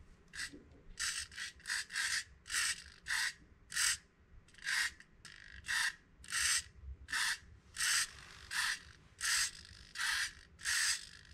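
An RC servo in a 3D-printed swinging robot whirring in short bursts, about one to two a second, as it is driven back and forth by hand with a servo tester to pump the swing.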